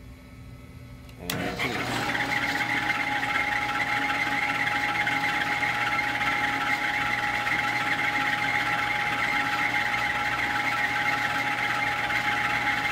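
Machine spindle motor switching on about a second in and then running steadily with an even whine, spinning an edge finder to locate the edge of a brass workpiece.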